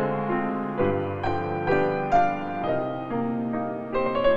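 Background piano music, individual notes struck about twice a second and fading between strikes.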